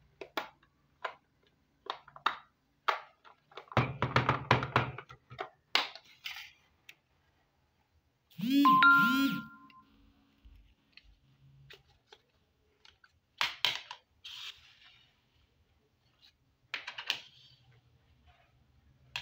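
Small plastic toy pieces clicking and knocking as they are handled and set down on a table, with a denser clatter about four seconds in. About eight and a half seconds in comes the loudest sound, a short electronic toy sound with two bell-like tones.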